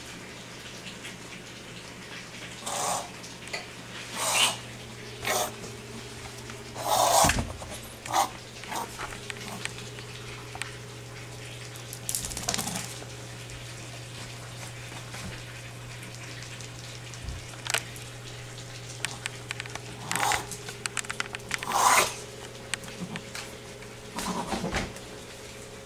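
A sick Miniature Pinscher making short, noisy choking gasps, about ten at irregular intervals, with the loudest around a quarter of the way in and near the end. She sounds congested and seems to be gasping for air, with a runny nose.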